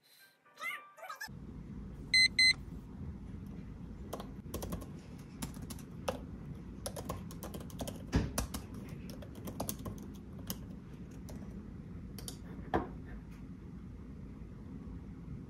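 Typing on a computer keyboard: irregular key clicks over a steady low room hum. Two short, loud electronic beeps come about two seconds in.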